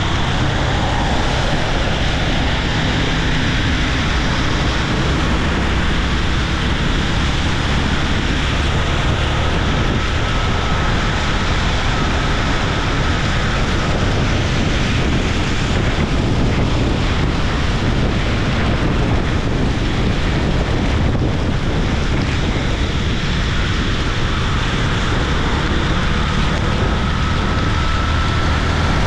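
Steady wind noise buffeting the camera microphone of a motorcycle riding at speed in the rain, over a continuous low rumble of engine and road. A faint high whine rises slightly twice.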